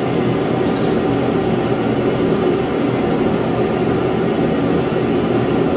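Portable propane shop heater running with a steady, loud noise and a low hum, with a few faint clicks of hand work on the carburetor cables about a second in.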